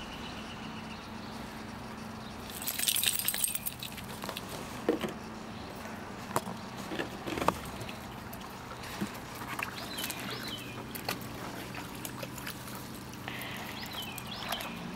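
Puppy splashing water in a plastic kiddie pool: a burst of splashing about three seconds in, then scattered small splashes and taps, over a low steady hum.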